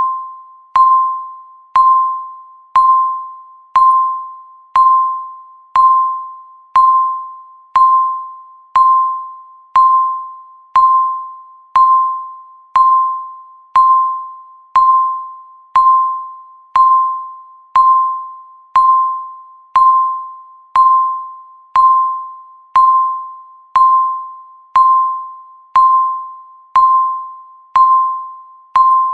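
Countdown timer's tick sound: a short, clear electronic tone struck once every second, each one fading quickly before the next, marking off the seconds.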